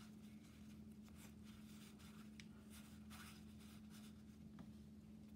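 Faint soft swishes and flicks of Magic: The Gathering cards slid against one another as a hand-held stack is leafed through, a few scattered strokes over a steady low hum.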